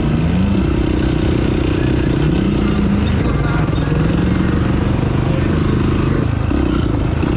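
Off-road vehicle engine running under changing throttle, its pitch rising and falling several times.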